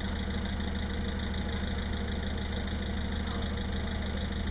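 An engine idling steadily, a low hum with an even pulse.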